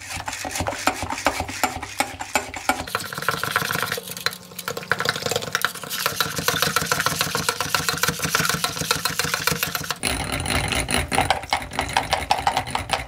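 Metal whisk beating an egg and cornflour batter in a glass bowl, a fast, continuous clicking and rattling of wire against glass.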